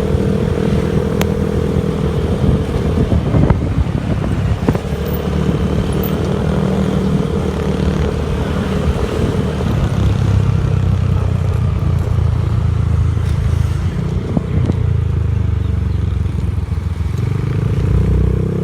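A vehicle engine running steadily under way, its pitch shifting a few times and rising near the end, with a few knocks in the first seconds.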